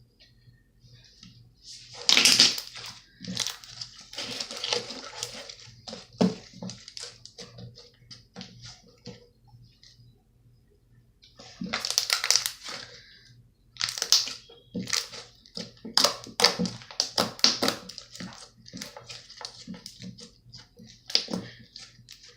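Slime being squished and poked by hand close to the microphone: bursts of wet crackling and popping clicks with short quiet gaps between them.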